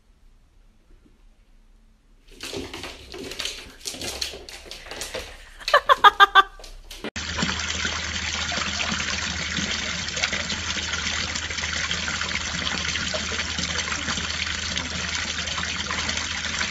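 Water pouring steadily from a garden water-feature spout and splashing into the basin below, starting about seven seconds in. Before it come scattered knocks and a brief run of rapid high pitched calls.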